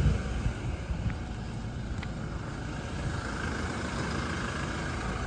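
Steady car engine and road rumble heard from inside the cabin.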